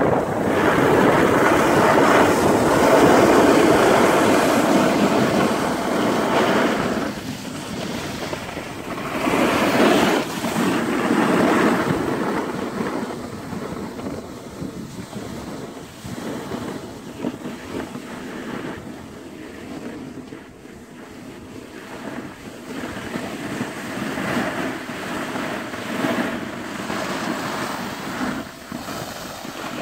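Rushing scrape of sliding on a groomed ski slope, mixed with wind buffeting the microphone. It is loudest at first, swells again about ten seconds in, then eases off.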